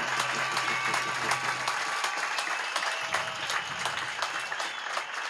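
Crowd applauding, a dense patter of many hands clapping that eases off a little towards the end.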